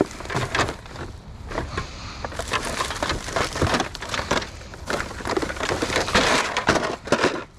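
Rummaging through curbside trash: a dense, irregular run of crackles, rustles and knocks as items are pulled about and handled.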